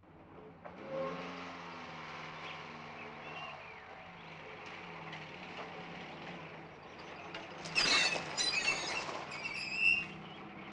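A vintage open two-seater car's engine running, rising in pitch about a second in and then holding steady. Near the end come several knocks and high squeaks as a wooden farmyard gate is swung open.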